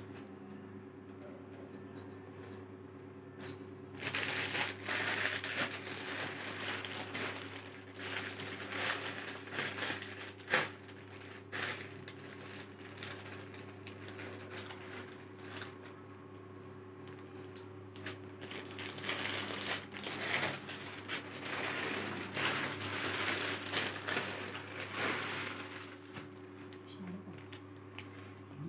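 Cloth and plastic packaging rustling in irregular bursts as sarees are unfolded and handled, with light clinks, over a steady low hum.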